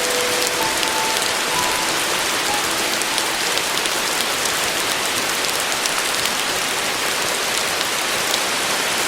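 Steady rain falling on a surface, an even hiss with fine ticking drops. In the first few seconds the last soft piano notes of a phrase ring and die away, leaving the rain alone.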